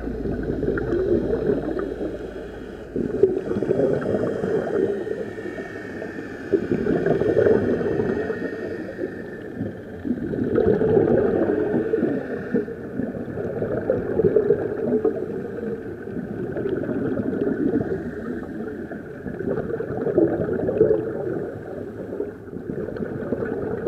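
Muffled underwater rush and bubbling of air, heard with the microphone under water, swelling and fading every three to four seconds.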